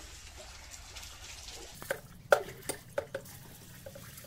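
Water poured from a metal jug into the open end of a steel pipe, with a run of sharp metal clinks and knocks of the jug against the pipe between about two and three seconds in, the loudest a little past two seconds.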